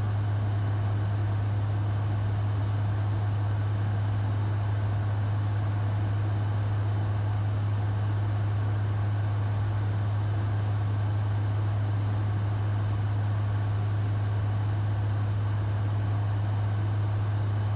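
Steady in-flight cockpit noise of a Bombardier Challenger business jet holding level cruise: an even rush of airflow and engine noise under a strong, constant low hum.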